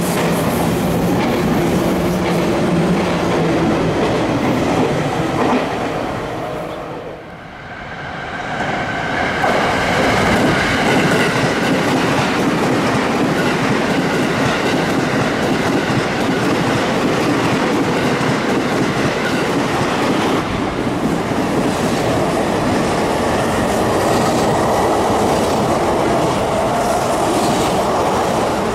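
Electric commuter trains running through a station, with wheel-on-rail clatter. One train's running noise, with steady low tones, dies away about seven seconds in. Another train then comes through loudly, with steady high tones over its running noise.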